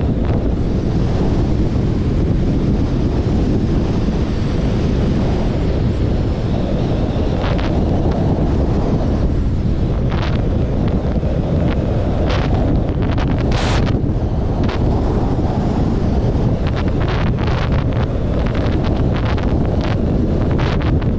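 Wind buffeting the microphone of a camera moving along a road: a loud, steady low rumble, with a few short clicks and ticks that come more often near the end.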